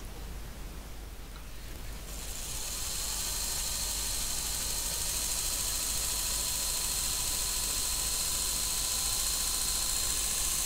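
Rewound series-wound brushed motor of a MADAS mechanical calculator starting to spin about two seconds in as its supply voltage is turned up, then running at low speed with a steady whine and a high hiss that grow gradually louder. It runs smoothly with practically no arcing at the brushes, which suggests the rewound rotor's timing is correct; it is held to low speed because the rotor windings are not yet impregnated.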